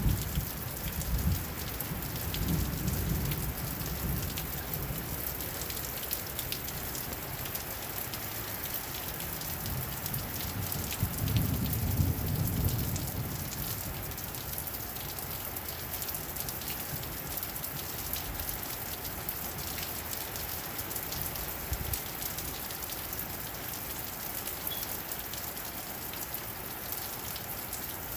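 Steady rain falling, a dense hiss full of small drop ticks. Low rumbles swell up about 2 s in and again around 11 s in.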